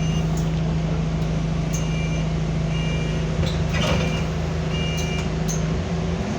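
A single-deck bus's diesel engine running steadily, with a short two-tone beep that repeats every one to two seconds. Near the end the engine note changes and starts to rise as the bus pulls away.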